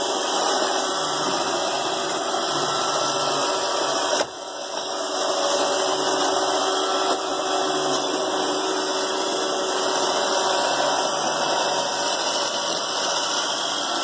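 iRobot Roomba robot vacuum running across carpet, its vacuum motor and brushes giving a steady whirring hum that briefly dips about four seconds in.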